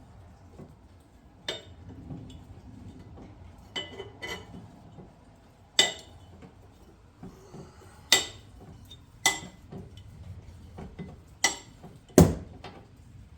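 Sharp metallic clinks and clanks, about eight at uneven intervals with a short ring, the loudest near the end, as the car jack is cranked down to lower the car onto the spare.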